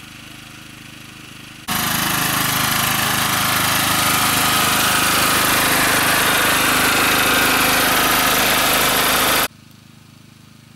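Small portable petrol generator running steadily up close, a loud even engine drone from about two seconds in until it cuts off abruptly near the end. A fainter steady engine hum comes before and after it.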